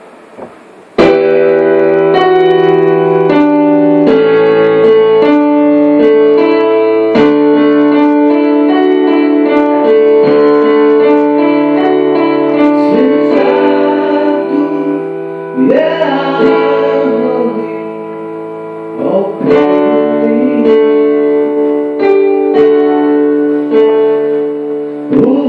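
Keyboard playing sustained chords during a sound check, starting suddenly about a second in, with a voice singing over it partway through.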